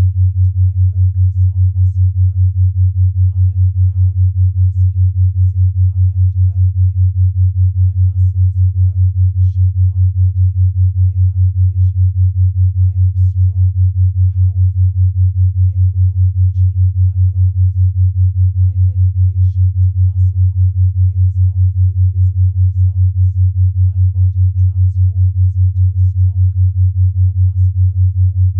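5 Hz binaural-beat tone: a steady low pure tone pulsing evenly about five times a second.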